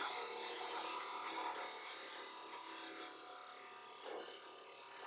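Parting tool rubbing in a single narrow parting groove cut into wood spinning on a lathe, over a steady hum from the lathe, fading gradually. With no overlapping second cut, the tool rubs the sides of the groove hard enough to scorch the wood and leave burn marks.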